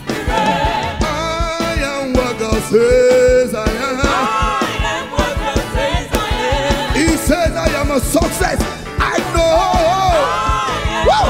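Live gospel praise music from a church band, with a steady drum beat and singing.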